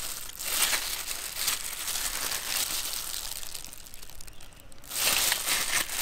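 Plastic glove crinkling and wet wax honeycomb squishing as a hand squeezes the comb over a metal mesh strainer. The crackle comes in uneven bursts, eases off about four seconds in, then picks up again.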